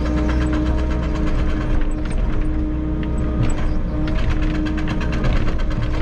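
Volvo EC60E mini excavator's diesel engine running steadily with a continuous hydraulic whine, heard from the operator's cab while the bucket digs a trench; the whine drops briefly a few times as the hydraulic load shifts.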